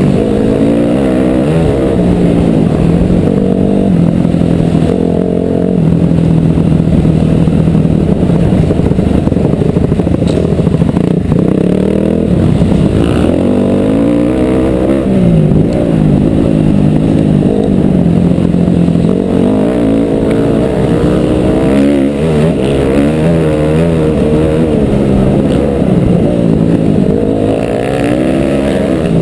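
Dirt bike engine heard on board while riding a dirt trail, the revs rising and falling again and again with throttle and gear changes.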